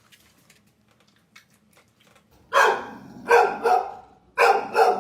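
A dog barking: five loud barks in quick succession, starting about halfway in after a quiet stretch.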